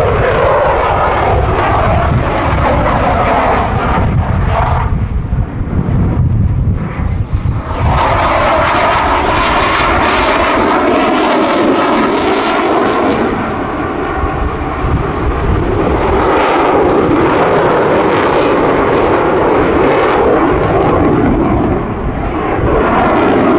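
Eurofighter Typhoon's twin Eurojet EJ200 turbofans roaring through a display routine. The pitch falls near the start, then the roar grows louder and harsher from about a third of the way in.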